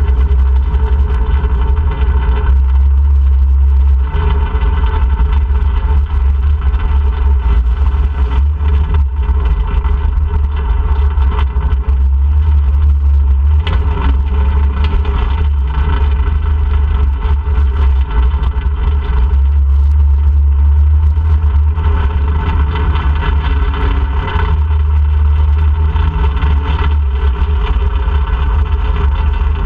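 ATV engine running steadily while riding, its note shifting a little up and down with the throttle, over a heavy low rumble.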